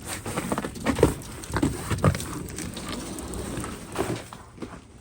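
Irregular crunching and knocking in piled hailstones as they are stepped in and scooped up, loudest about a second in and again near four seconds.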